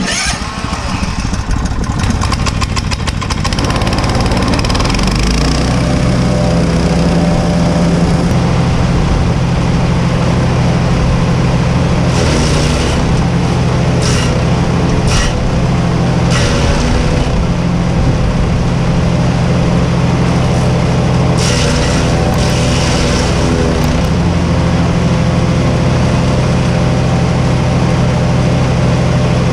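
Small petrol engine of a Cobra wood chipper running loud and steady, coming up to speed over the first few seconds. Several short bursts of higher, hissy noise break in around the middle.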